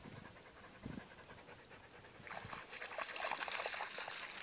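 A dog panting in quick, repeated breaths, starting about halfway through.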